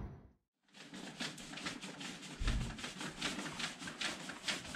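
A brief dropout near the start, then a run of irregular clicks and rustles, several a second.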